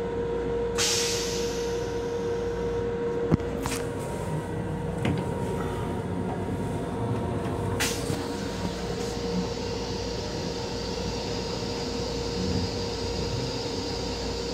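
Steady rumble of an M7 electric commuter railcar heard from inside its small restroom. A steady hum cuts off with a sharp click a little over three seconds in, and there are a few light knocks and a short hiss.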